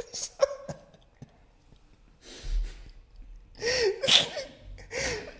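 A man's stifled laughter: a long breathy exhale about two seconds in, then short squeaky, wheezing gasps of held-in laughing near the end.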